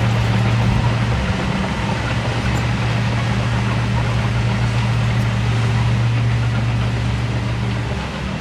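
Heavy-equipment diesel engine running steadily with a strong low drone, over a dense mechanical clatter.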